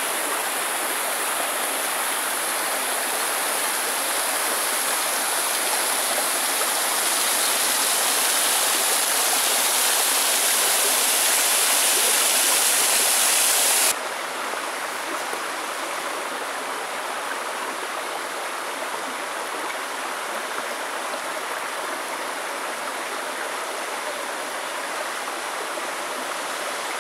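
Waterfall pouring down a vertical rock face: a steady rush of falling water that grows a little louder, then drops suddenly to a quieter level about halfway through.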